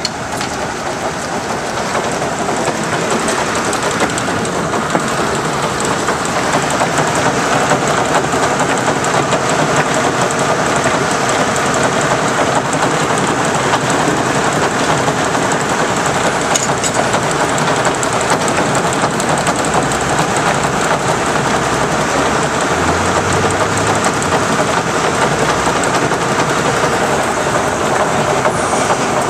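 Russell steam traction engine powering a belt-driven sawmill, the machinery running with a loud, steady clatter. It builds over the first few seconds and then holds.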